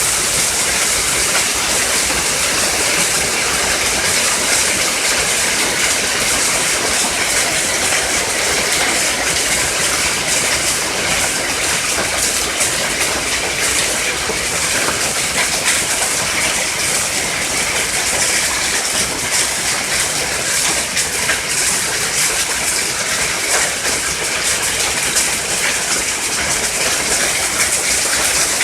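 Heavy hailstorm: hailstones pelting down steadily, a dense, unbroken clatter of countless small impacts.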